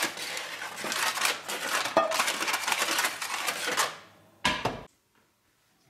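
Block of butter in its paper wrapper rubbed around a non-stick frying pan to grease it: a dense scraping and paper crinkling. It stops about four seconds in, followed by one short scrape, then near silence.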